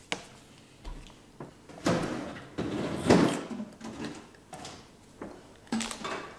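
Kitchen drawers or cupboards being opened and items moved about inside. A sharp click comes at the start, then two noisy sliding, rummaging sounds between about two and three and a half seconds in, and a few lighter knocks near the end.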